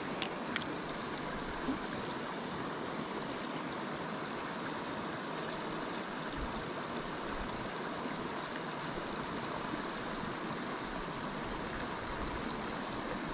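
Steady rush of flowing stream water, with a few light clicks in the first second or so.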